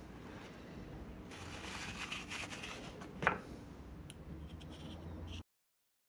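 Faint handling of small metal tools and hub parts at a workbench, with one sharp click a little past halfway and a few light ticks after it.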